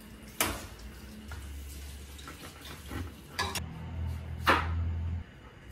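A metal ladle knocking against a stainless steel frying pan three times while thin lamb slices cook in it, the last knock the loudest, over a low hum that stops near the end.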